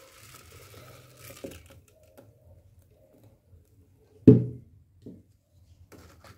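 Blended guava water poured from a blender jar through a wire mesh strainer into a plastic pitcher: a soft splashing hiss that stops about a second and a half in. About four seconds in comes a single sharp knock, then a fainter one a moment later.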